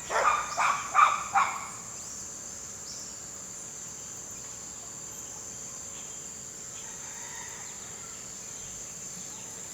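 A steady, high-pitched insect chorus of rainforest insects trilling without a break. A few short louder sounds come in the first second and a half.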